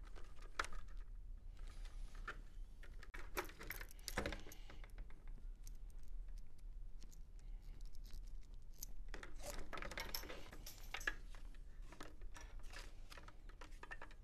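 Scattered light clicks, taps and rustles of plastic chin-strap parts and nylon webbing being handled against a football helmet, as the stock chin strap is worked out of the helmet's chassis strap system.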